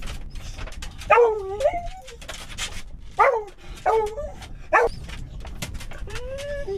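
A dog whining in short, high-pitched calls, about five in quick succession, then one longer drawn-out whine near the end.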